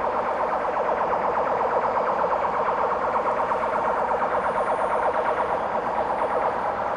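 Railway equipment on the line, running with a steady, fast rhythmic clatter that eases a little near the end.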